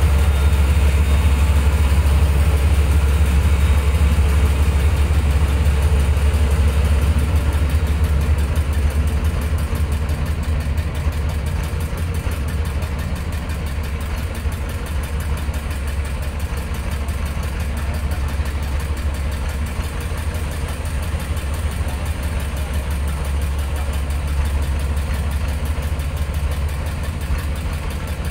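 Small wooden motorboat's engine running with a steady low drone, getting a little quieter about ten seconds in.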